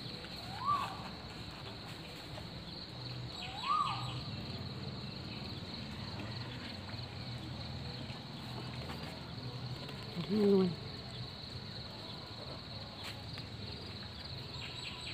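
Steady high-pitched insect buzz, like crickets, over a low hum. Two short chirps that rise and fall come about a second and four seconds in, and a brief, louder low call comes about ten seconds in.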